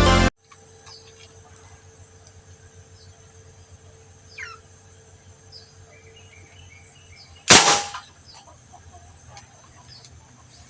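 Music cuts off abruptly at the start, leaving a quiet background with faint bird chirps. About seven and a half seconds in there is a single sharp crack with a brief ring: a PVC marble toy gun shot striking a tin can.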